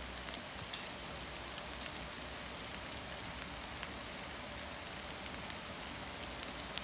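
Light rain falling steadily, with scattered drops tapping on the fabric of a camouflage pop-up photography blind.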